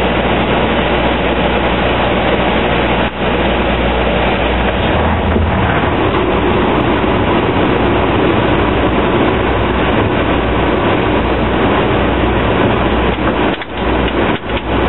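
Steady cabin drone of a Dash 8-300's twin turboprop engines and propellers, heard from the cockpit on approach, with a low propeller hum under a loud rushing noise. The low hum changes pitch about five seconds in, and the sound dips briefly a few times near the end.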